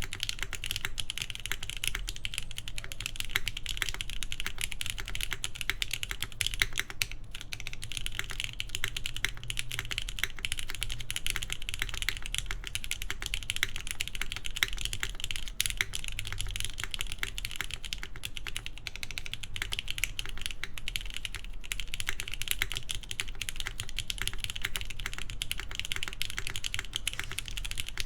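Mechanical keyboard typing: fast, continuous keystrokes on a gasket-mounted Keybay Tech The Base with a full polycarbonate plate, lubed Gateron Milky Top Yellow linear switches and GMK keycaps. The typing runs steadily with a brief pause about seven seconds in.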